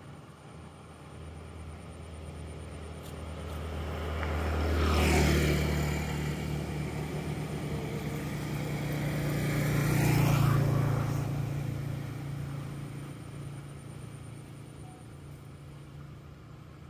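Two motor vehicles driving past one after the other. Each engine hum and tyre noise rises and fades, the first passing about five seconds in and the second about ten seconds in. The second vehicle's engine note is higher.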